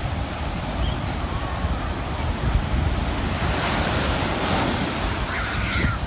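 Ocean surf breaking and washing up a sandy beach, with wind rumbling on the microphone. The wash swells louder about halfway through.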